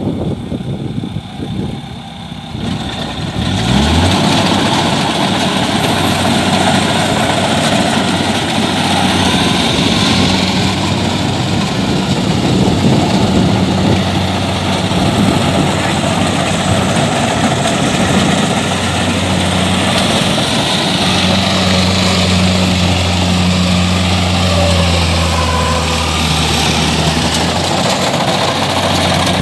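Kubota DC-70 combine harvester's diesel engine revving up about four seconds in, then running steadily at working speed with a constant drone.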